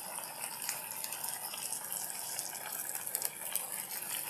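Duck breast sizzling in its own rendered fat in a frying pan: a steady hiss with small scattered crackles.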